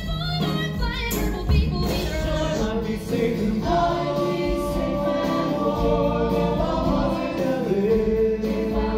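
Stage musical cast singing together as a choir with band backing, heard live from the theatre audience. The singing moves quickly at first, then settles into long held notes from about halfway through.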